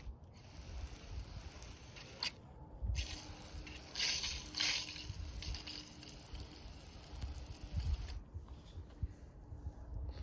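Water spraying and splashing onto a car windshield that has just been treated with a rain repellent, in two spells of hiss with a short break between them, strongest about four to five seconds in, then stopping.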